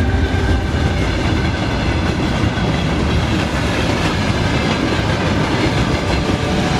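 A train running fast along the track: a steady, loud rumble of wheels on the rails.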